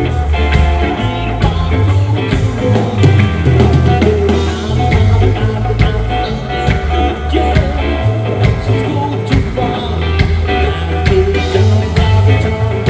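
Rock trio playing live during a soundcheck: electric guitar, bass guitar and drums, with heavy bass notes changing every second or so under frequent drum hits.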